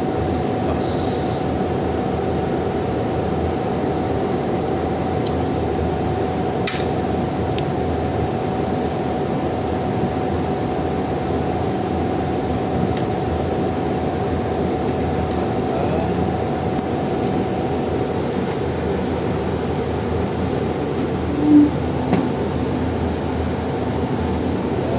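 Steady mechanical hum with a faint constant whine, a faint click about a third of the way through and a short low blip near the end.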